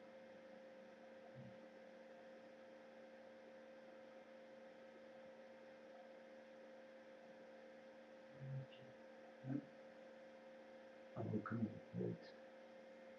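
Faint, steady electrical hum picked up by a surveillance camera's audio, several constant tones over a low hiss. A few brief faint sounds come in the last few seconds.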